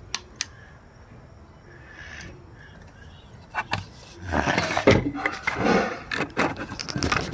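Sharp clicks from a replica fire alarm pull station being handled and pulled, then a louder stretch of noise for about three seconds; no alarm tone sounds.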